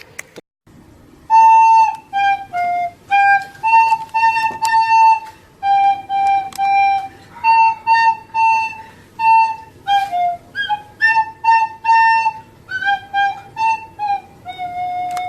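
A ringtone-like tune of short separate notes on a flute-like wind instrument, about two notes a second, with a few brief pauses between phrases.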